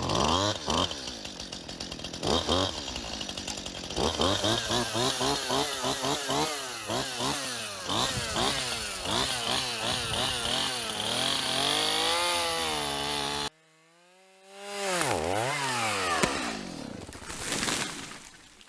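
Chainsaw cutting into a pine tree's trunk, its engine revving up and down over and over. The sound cuts off abruptly about two-thirds of the way through, then the saw revs up again and dies away near the end.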